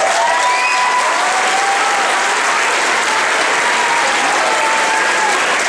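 Theatre audience applauding steadily, with a few shouted cheers rising and falling over the clapping.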